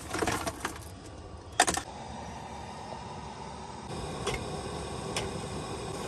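Clicks and knocks of items being handled in a cabinet while a measuring cup is fetched, with a sharp clatter about a second and a half in. Then a steady hiss from the propane stove heating the pot of water, a little louder from about four seconds in.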